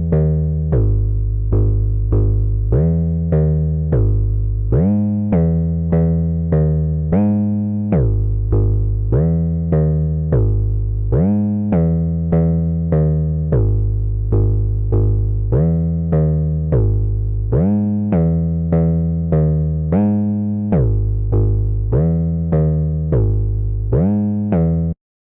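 808-style synth bass preset played on the Massive software synthesizer: a run of deep notes, about one and a half a second, each dying away. Several notes slide up in pitch as they start.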